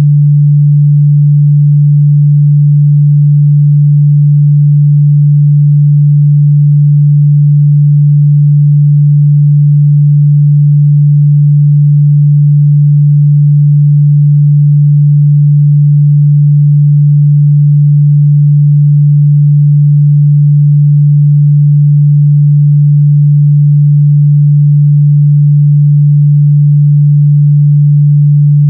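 A steady, loud 146 Hz sine-wave test tone, a pure mid-bass hum held at one pitch without change.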